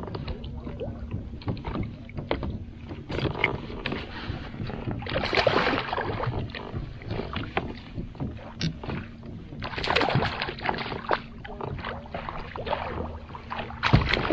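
A hooked sockeye salmon thrashing and splashing at the surface beside a kayak as it is netted, with the longest bouts of splashing about five seconds in and again about ten seconds in. Scattered clicks and knocks from the rod, reel and net run through it.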